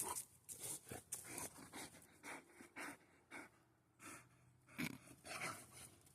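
Boxer dog panting in quick, uneven puffs while playing over a toy.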